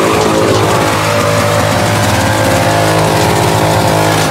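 Lexus LS400's 1UZ V8 held at high revs in a burnout, tyres spinning and squealing on the asphalt, with music playing over it.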